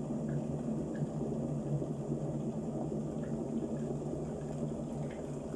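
Kitfort KT-671-4 stainless-steel electric kettle coming to the boil: a steady rumble of water heating up.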